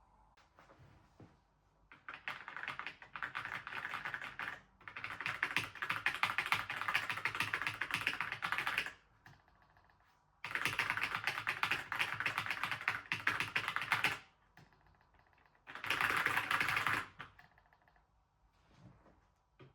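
Mechanical keyboard being typed on quickly, in several bursts of rapid key clicks a few seconds long with short pauses between.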